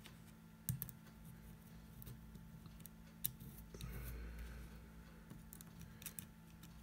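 Small metal nuts being picked up and threaded by hand onto the metal standoffs of a clear acrylic Raspberry Pi case: a few light, sharp clicks spread through a quiet stretch, with soft handling rustle in between.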